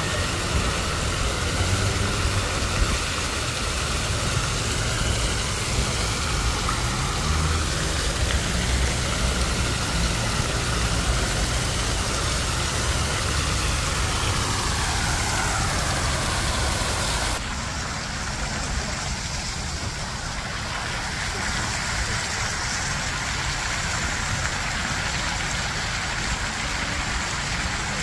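Fountain jets splashing into a stone basin: a steady rush and hiss of falling water, with a low rumble underneath. About two-thirds of the way through, the hiss suddenly becomes duller and a little quieter.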